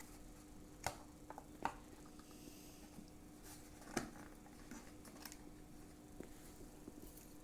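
A few scattered light clicks and taps as takeaway food containers and their packaging are handled, over a faint steady hum.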